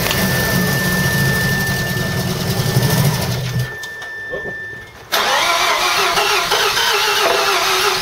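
Mazda RX-7 FD3S's newly installed 13B twin-turbo rotary engine running on its first start, fading out about three and a half seconds in, then after a brief lull coming back abruptly and running rough and uneven.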